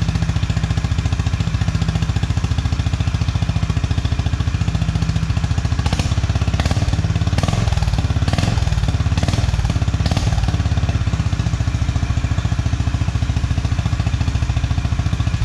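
Honda CB350 RS's air-cooled single-cylinder engine idling through its stock exhaust, a throaty note, with several short blips of the throttle about six to ten seconds in.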